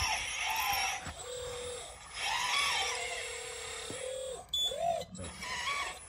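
Radio-controlled hydraulic crawler dozer's electric pump and drive motors whining as it pushes soil with its blade. The pitch rises and falls, and a steadier lower whine holds for a second or so in the middle.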